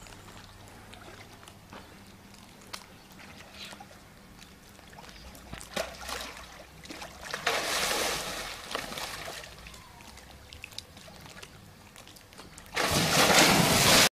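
A tiger splashing in a pool: faint lapping water at first, splashing from about six seconds in, and a loud burst of splashing near the end.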